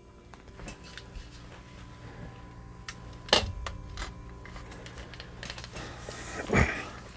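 Handling noise of a lightweight portable projector screen frame being moved and turned over: light clicks and taps, a sharp knock about a third of the way in, and a louder scrape or thump near the end.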